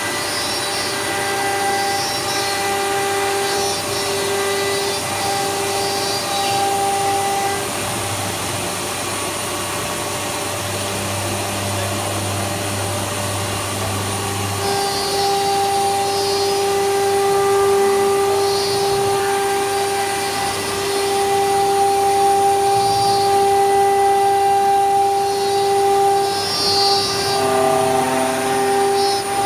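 1325 CNC router with a vacuum table running: a steady noisy machine drone with a humming tone. The tone breaks off several times early on, drops out for several seconds in the middle, then holds steadily through the second half.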